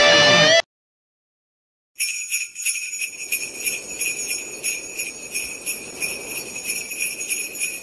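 Electric guitar music cuts off about half a second in, and after a silent gap of over a second, sleigh bells start jingling, shaken steadily.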